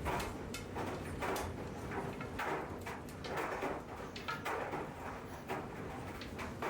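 Washing machine running, with irregular swishing and light knocking repeating about once or twice a second as the drum turns.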